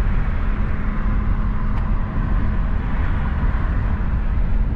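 Steady road and engine noise inside a moving car: an even low rumble with a faint steady hum.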